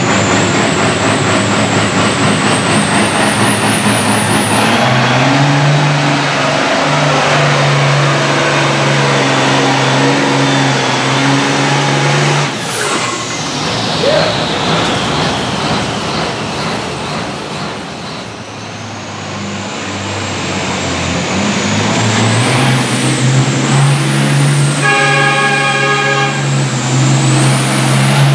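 Turbocharged diesel of an International pulling tractor running hard under load, then throttled off about halfway with a falling turbo whistle. After a quieter stretch another tractor diesel revs up, with a brief horn-like toot in the last few seconds.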